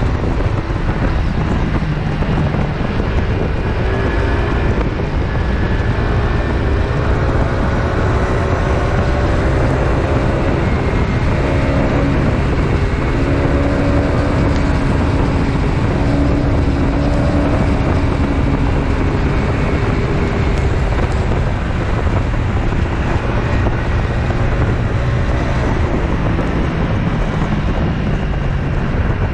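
PGO Tigra 150 scooter's single-cylinder engine running at cruising speed, heard from the rider's seat under heavy wind noise on the microphone. Its pitch wavers up and down a little as the throttle changes.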